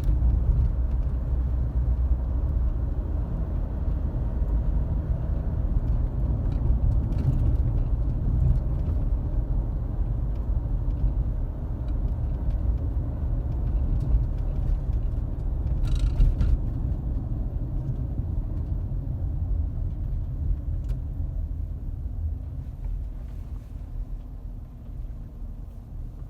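2012 Volkswagen Touareg TDI on the move: a steady low rumble of engine and road, easing off in the last few seconds. The front-end whine the owner is chasing is hardly there.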